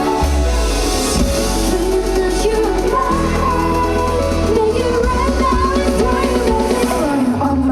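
Live pop song with female group vocals, sung over a deep bass line and drums at loud, steady volume.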